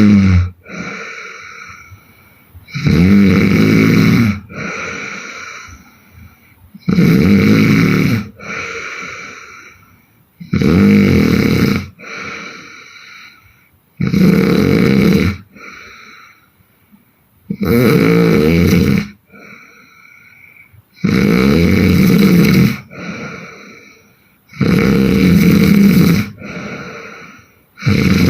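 A woman snoring hard in a steady rhythm: a loud snore about every three and a half to four seconds, each lasting about a second and a half and followed by a quieter breath that fades away.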